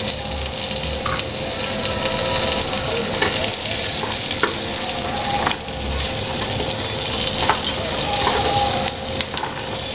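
Whole spices, onion, green chillies, ginger and garlic sizzling in a hot pan as they roast, stirred with a spoon that scrapes and knocks against the pan now and then.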